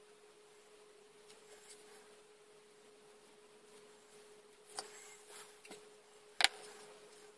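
Small clicks and taps from hobby tools and plastic model parts being handled on a workbench, the sharpest tap about six and a half seconds in, over a faint steady hum.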